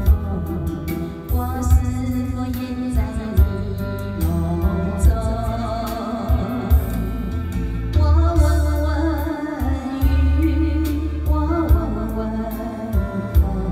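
A woman singing a ballad into a handheld microphone over a karaoke backing track with a steady beat and a strong bass line.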